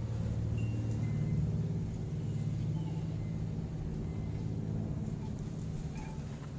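A steady low rumble, like a motor running, with a few faint short high tones over it.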